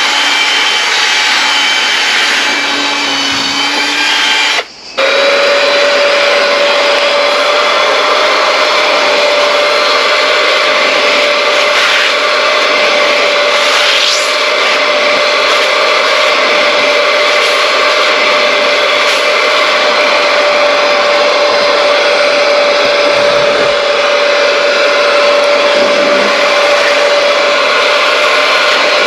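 Electric motor of a car-interior cleaning machine running steadily with a whine. It cuts out briefly about five seconds in and comes back on one steady whining note.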